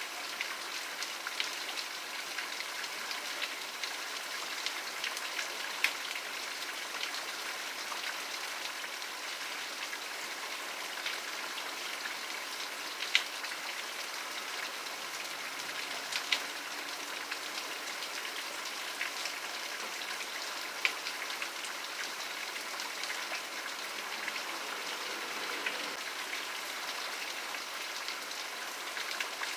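Steady rain falling, an even hiss of many drops on a surface, with scattered sharper drop ticks, a few louder ones standing out.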